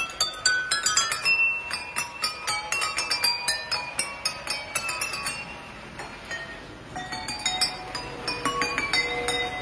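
Water-tuned drinking glasses struck one after another by a striker arm on a passing model train locomotive, ringing out a melody of clear glass notes at changing pitches. The strikes thin out briefly about six seconds in.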